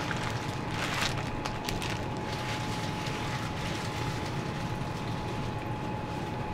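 Steady background noise of a small shop, with a thin steady whine running underneath and a few faint clicks and rustles in the first two seconds.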